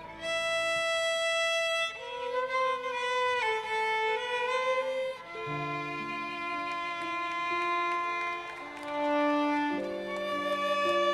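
Solo violin playing a slow melody of long held notes, with lower accompanying notes coming in about five seconds in.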